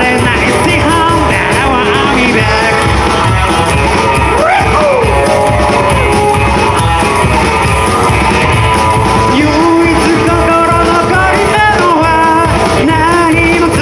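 A rockabilly band playing live, with a singer over the band.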